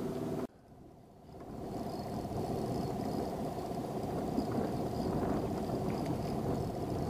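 Small outboard motor running steadily at low speed as the boat trolls, with water noise from the wake. The sound drops out half a second in and fades back up over the next second or so.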